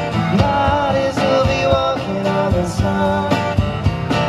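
Live band playing a song: a drum kit keeping a steady beat, a strummed acoustic guitar and a singer holding long notes.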